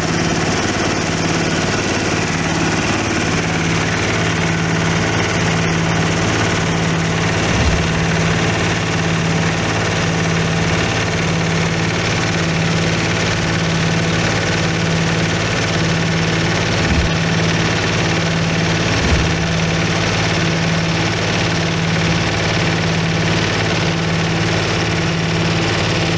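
A rice-husk grinding mill running steadily under its motor, making a constant hum and even mechanical noise, with a few faint low thumps.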